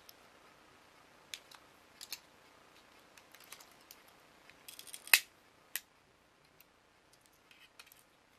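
Scattered small clicks as a plastic part of a VeriFone 3750 card terminal is worked at by hand to break it open, with one sharp snap about five seconds in and a further click just after.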